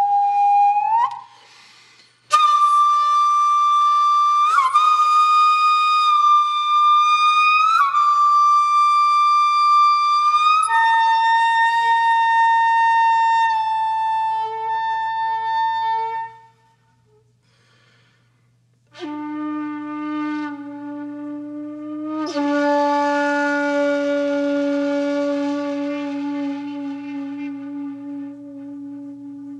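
Background music: a slow solo melody of long, held notes on a flute-like wind instrument. It breaks off briefly about a second in and again just past the middle.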